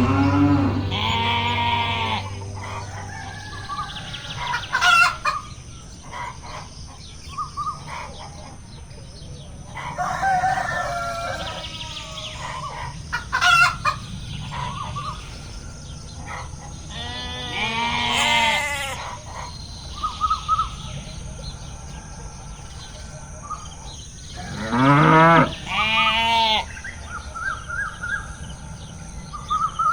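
Farmyard poultry: a rooster crowing several times, the longest crow about two-thirds of the way through, with short clucks and chirps between the crows.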